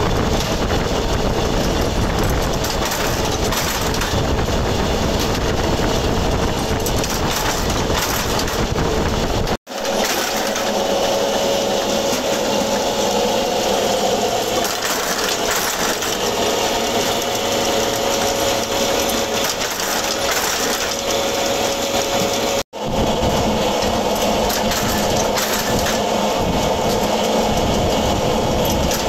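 Mechanical bolt-heading forging press running continuously while hot steel blanks are fed into it, a dense steady metallic clatter. A steady whine comes through in the middle stretch, and the sound drops out briefly twice.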